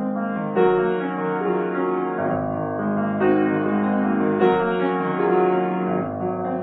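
Solo grand piano playing a classical piece, with fresh chords struck over sustained bass notes every second or so.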